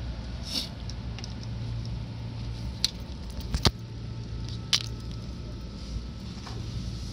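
Inside a Seibu 6000 series electric train car: a steady low rumble and hum, with a few sharp clicks, the loudest about three and a half seconds in.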